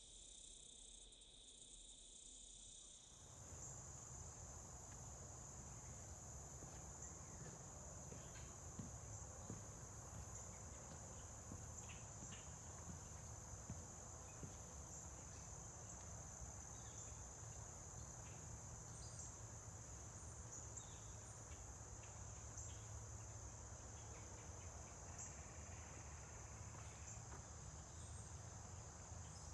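Faint, steady high-pitched chirring of insects, such as crickets. A little over three seconds in, the sound changes abruptly, as at a cut: the high chirring goes on with a low rumble underneath and a few small clicks.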